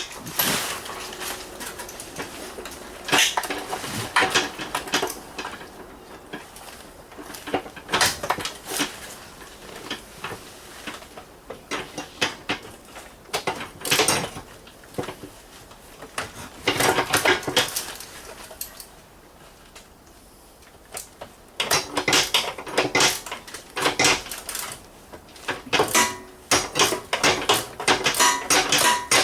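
Hand tools working on the riding mower's engine mounting bolts: metal clicking and clinking in repeated quick bursts, with short pauses between them.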